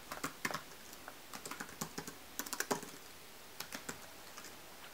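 Typing on a computer keyboard: short irregular runs of key clicks with brief pauses between them.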